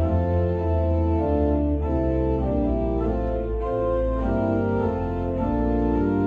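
Organ playing a hymn in sustained full chords, with a deep pedal bass line beneath; the chords change every half second to a second.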